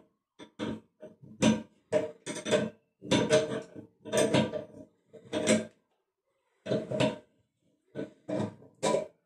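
Metal tools and fittings clinking and rattling in a run of short bursts as work goes on at the connections under an electric water heater.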